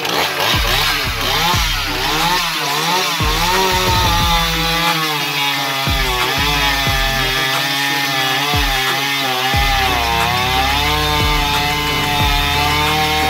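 Jonsered 535 two-stroke chainsaw at full throttle cutting through a thick log. The engine pitch wavers for the first few seconds as the chain bites into the wood, then holds fairly steady under load with small dips.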